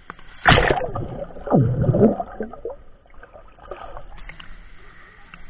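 Pool water splashing over a camera at the water's surface, with two loud splashes, one about half a second in and another about a second and a half in, then quieter sloshing.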